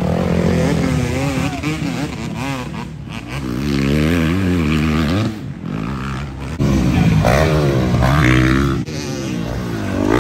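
Dirt bike engines revving hard, the throttle blipped again and again so that the pitch keeps rising and falling.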